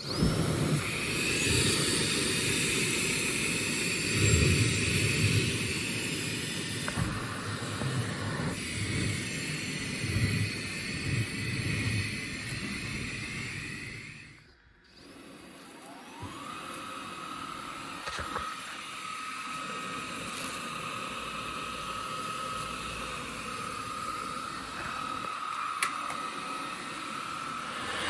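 Bosch Unlimited 7 ProHygienic Aqua cordless vacuum cleaner running with a whooshing motor whine. About halfway through it shuts off briefly, then starts again, its motor winding up to a steady higher whine.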